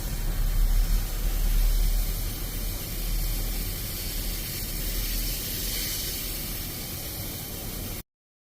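Steady hissing noise with a low rumble underneath. It is loudest over the first couple of seconds, then eases a little and cuts off sharply near the end.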